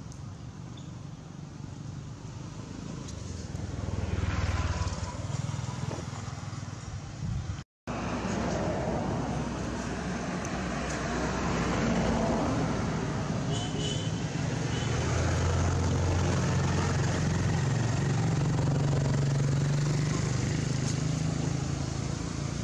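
Outdoor background dominated by a low motor-vehicle engine rumble. It swells about four seconds in and again through the second half, and the sound cuts out for an instant about eight seconds in.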